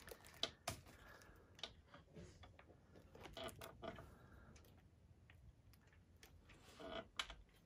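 Faint, irregular clicks and light taps of a screwdriver working the clutch screw on a Singer hand-crank sewing machine's metal hand wheel, with small handling knocks between them.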